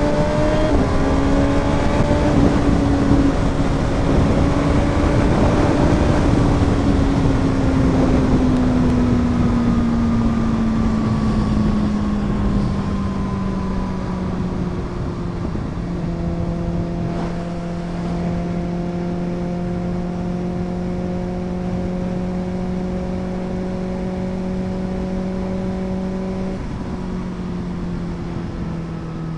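Kawasaki Ninja ZX-6R's inline-four engine through an Arrow full-system exhaust, heard while riding. The engine note rises briefly at the start, then falls steadily for about ten seconds as the revs drop, then holds a steady cruising tone. A loud rushing noise sits under the engine in the first half.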